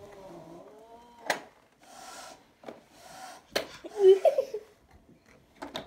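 Agitated cat: a wavering low yowl fades out in the first second, two short hisses follow, and about four seconds in comes a loud, broken growl-yowl, the loudest sound here. A few sharp knocks fall in between.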